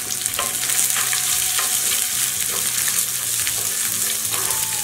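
Onion, garlic, cumin seeds and dal sizzling in hot oil in a non-stick frying pan, with a steel spoon stirring them and scraping and tapping against the pan a few times.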